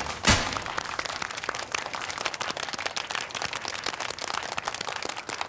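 A small crowd clapping and applauding steadily, after one last loud confetti-cannon pop just after the start.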